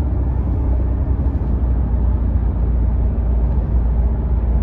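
Steady low rumble of engine and road noise inside the cabin of a moving Kia car.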